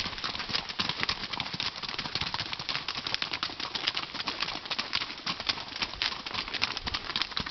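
Hooves of several horses walking on a stony dirt trail: a dense, irregular patter of clip-clops.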